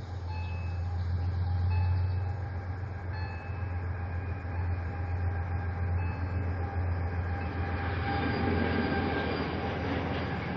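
Train passing on the line ahead: a steady low drone, with the rumble of wagon wheels on the rails building from about eight seconds in as the blue wagons cross.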